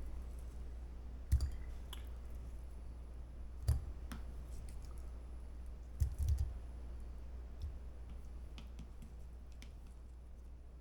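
A kitchen scale and bowl being handled on a countertop while shrimp are re-weighed: a few separate light clicks and knocks spread out over the stretch, a small cluster of them about six seconds in.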